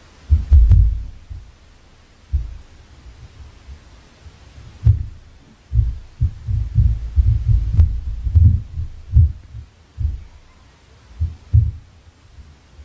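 Dull, heavy thuds of footsteps and impacts on the floor of the flat upstairs, carried down through the ceiling as low booms. Irregular single thumps, then a fast series of them in the middle, several a second.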